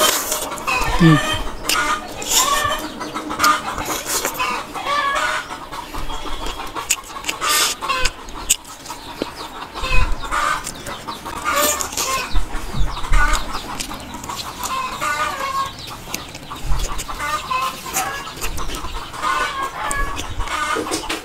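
Close-up eating sounds: wet chewing, lip smacks and clicks of someone eating puri dipped in curry by hand. Chickens cluck in short calls throughout, behind the eating.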